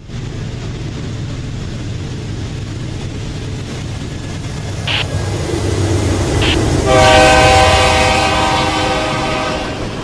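Diesel-hauled freight train rumbling past close by, wheels clattering on the rails. About seven seconds in, a locomotive air horn sounds a steady chord for roughly three seconds.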